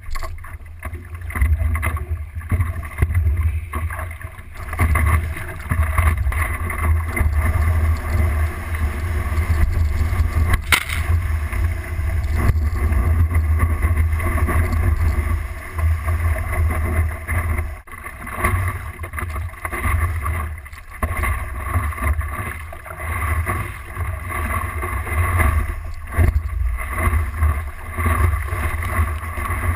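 Water rushing and splashing against a board-mounted GoPro in its waterproof housing as a stand-up paddleboard moves through the water, over a steady low wind rumble on the microphone. The level rises and falls in uneven surges.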